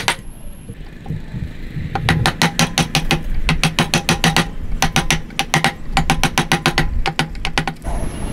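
Rapid hammer blows on a wood chisel, about seven a second, in runs of about a second with short pauses, as the chisel chops out a tenon in a hardwood beam. The first two seconds hold no blows.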